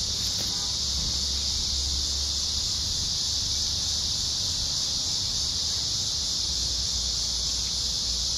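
Steady, high-pitched chorus of insects calling, an unbroken buzz with no pauses.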